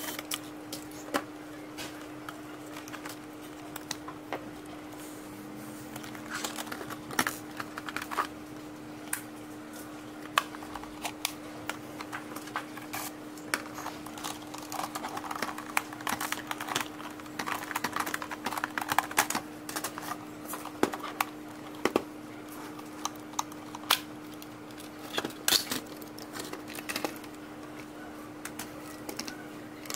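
Irregular clicks, taps and light rattles of hard plastic parts and small screws being handled as an ILIFE B5 Max robot vacuum is taken apart, over a steady low hum.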